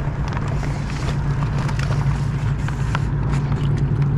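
A motor running steadily, a constant low hum with scattered light clicks and knocks over it.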